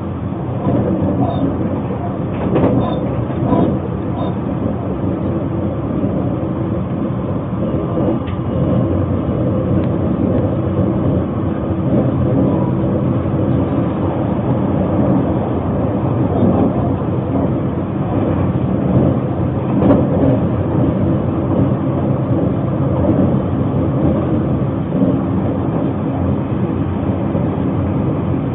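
Steady running noise of a Narita Express train, heard from inside the passenger car.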